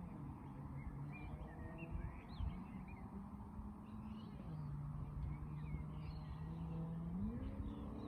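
Birds chirping and calling in short repeated notes over a low, steady hum that steps down in pitch about halfway through and rises again near the end.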